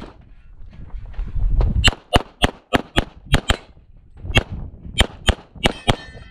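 9mm Walther PPQ Q5 Match SF pistol fired in rapid strings of about a dozen shots, mostly as quick pairs about a quarter second apart. The shots start about two seconds in, after a short lull.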